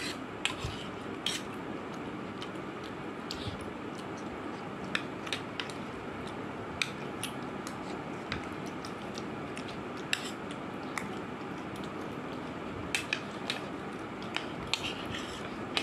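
Metal forks clicking and scraping against a plastic plate of pasta: short, sharp clicks at irregular intervals over a steady low hiss.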